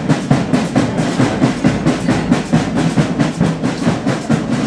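Drums, snare and bass drum, playing a steady, fast marching beat.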